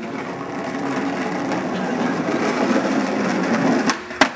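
Skateboard wheels rolling on rough pavement, a steady grinding rumble that builds and then drops away, followed near the end by a sharp clack of the board hitting the curb ledge.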